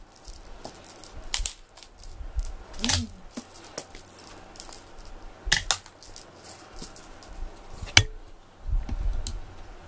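A cat teaser toy being shaken and waved, jingling and rattling in irregular bursts of metallic clicks, with one sharp click about eight seconds in.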